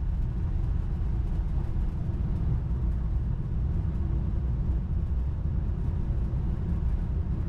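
Steady low rumble in a Boeing 787-9 flight deck as the airliner rolls out along the runway after touchdown, slowing towards a taxiway turn-off.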